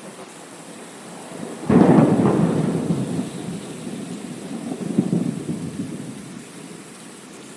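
Thunder crash over steady rain: a sudden loud crack about two seconds in, rumbling on with a second swell near the middle, then dying away into the rain.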